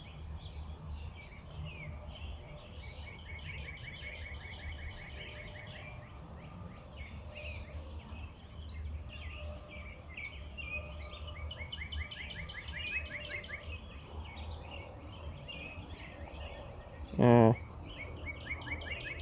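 Birds singing and chirping outdoors in the morning, one repeating a fast trill of rapid notes in runs of about three seconds, over a low background rumble. Near the end, a person makes one short vocal sound.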